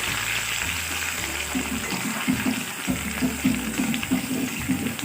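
Sliced onions sizzling as they fry in hot oil in a cooking pot, with background music playing.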